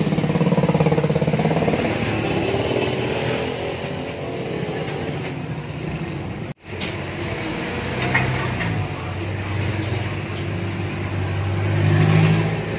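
A motor vehicle engine running nearby with a steady hum, rising in pitch over the first couple of seconds and swelling again near the end. The sound cuts out for an instant about halfway through.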